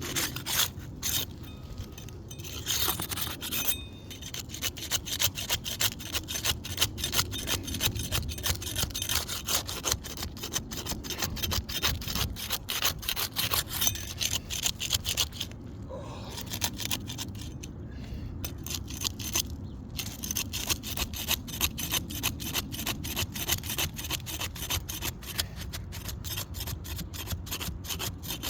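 Flat trowel scraping and working under old asphalt shingles to break their adhesive seal, in quick repeated rasping strokes with a few brief pauses.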